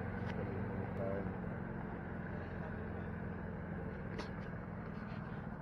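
Steady low mechanical hum of a running motor, with a couple of faint short clicks.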